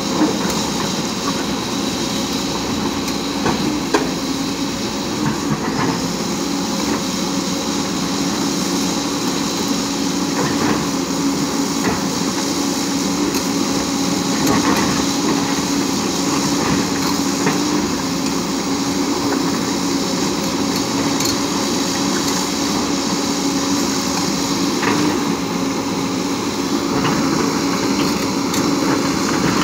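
JCB tracked excavator's diesel engine running steadily under digging load, with scattered clanks and knocks as the bucket works into broken rock.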